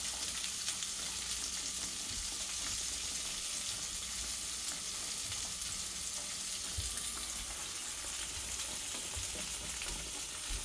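Battered fish pieces deep-frying in hot oil: a steady sizzle.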